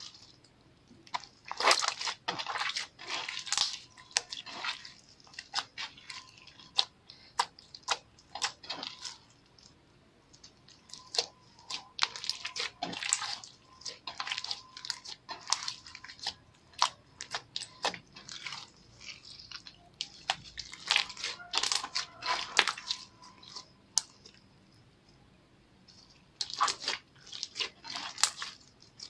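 Slime being kneaded, stretched and squeezed by hand: bursts of wet clicks, pops and squelches, with short lulls between them.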